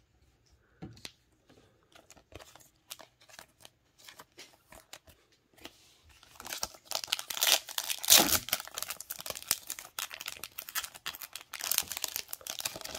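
A trading-card pack wrapper from a 2022 Topps Finest Star Wars box being crinkled and torn open. Light clicks and taps of cards being handled come first, then loud crinkling from about six seconds in, with a sharp rip about eight seconds in and more crinkling near the end.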